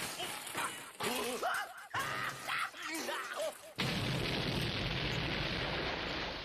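Cartoon characters' voices, then about four seconds in a cartoon explosion sound effect cuts in suddenly: a loud, even rushing blast that holds for about two and a half seconds before fading.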